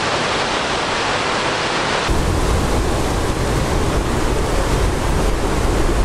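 Steady rushing of Jōren Falls, a basalt-faced waterfall about 25 m high, and its stream. About two seconds in, the sound changes abruptly and a low rumble joins the rushing water.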